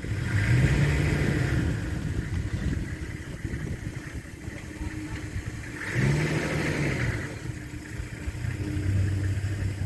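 A vehicle engine running steadily, its pitch rising and falling twice as it revs up and eases off.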